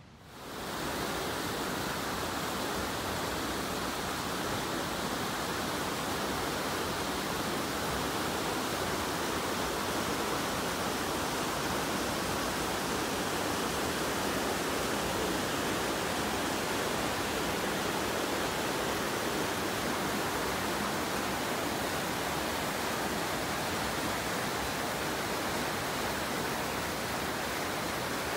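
Steady rush of a fast-flowing river, an even wash of water noise that fades in over the first second and holds unchanged.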